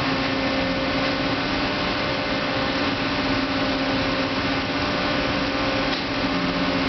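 Bullard CNC vertical turret lathe running: a steady mechanical hum with a constant tone over an even whir.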